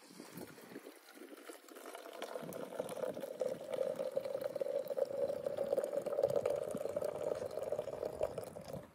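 Hot Arabic coffee (qahwa) poured in a thin stream from a metal kettle into a dallah coffee pot: a steady pouring, filling sound that grows clear about two seconds in and stops sharply just before the end.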